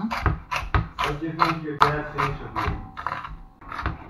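Chef's knife chopping vegetables on a wooden cutting board, in a quick steady rhythm of about four strokes a second.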